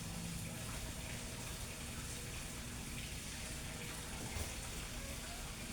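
Steady background hiss of room tone with a faint low hum, unchanging throughout.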